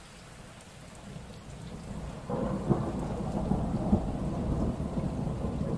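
Steady rain with a thunderclap: a low rumble builds for about a second, breaks suddenly a little over two seconds in, then keeps rumbling with a couple of sharper cracks.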